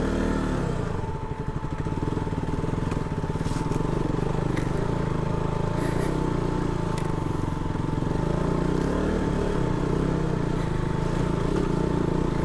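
Single-cylinder engine of a KTM RC 200 motorcycle running steadily as it rides over a rough stony track, with a thin steady whine over it. Small clicks from stones under the tyres come now and then.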